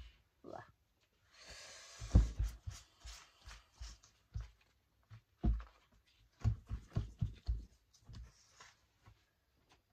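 Hands and a cloth wiping and patting a wet, coffee-stained paper page on a cutting mat: a brief rubbing hiss about a second and a half in, then irregular soft thumps and knocks as the paper is pressed and handled.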